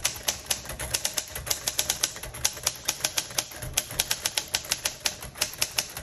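1947 Royal Quiet De Luxe manual typewriter being typed on at a steady pace: a quick, even run of type-bar strikes, several a second.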